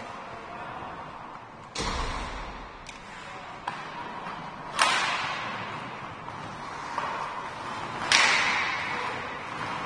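Ice hockey play: sharp cracks of stick and puck and hits against the boards, echoing around the rink. About six hits; the first, under two seconds in, has a dull thud, and the loudest come about five and eight seconds in.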